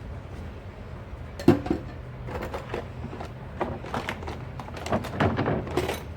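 Dishes and utensils knocking and clattering together while being washed by hand, in a string of separate knocks, the loudest about one and a half seconds in. A low steady hum runs underneath.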